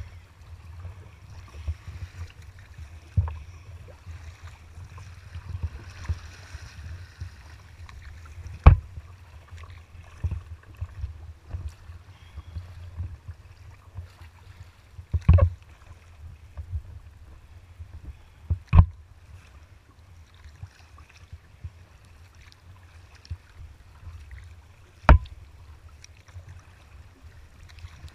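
Kayak moving through choppy water: a steady low rumble, with a few sharp slaps of waves against the hull.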